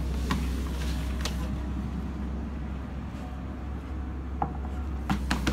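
A small dog treadmill running at a very low setting: a steady low motor hum with the belt turning. A few sharp clicks come near the end.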